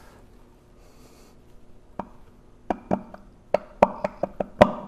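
Sharp metal clicks and knocks, several a second, starting about two seconds in, as a part is pushed by hand into the shaft bore of a Vilter single-screw compressor and seated against the back.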